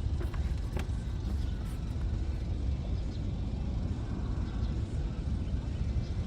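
Steady low rumble, with a few faint clicks in the first second.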